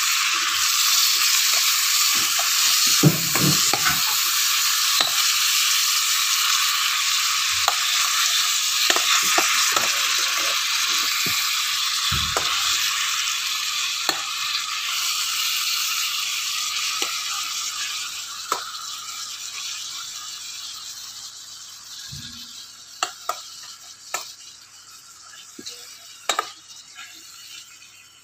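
Fermented small fish and spices sizzling in a stainless steel pot, with a metal spoon clicking and scraping against the pot as they are stirred gently. The sizzle fades away over the last ten seconds or so, leaving only scattered spoon clicks near the end.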